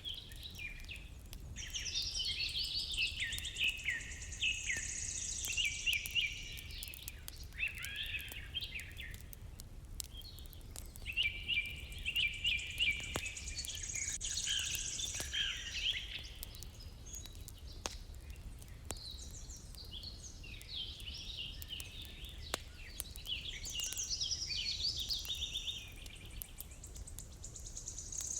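Songbirds singing in long runs of quick chirping phrases, three bursts of song with short lulls between, over a steady low rumble and scattered faint clicks.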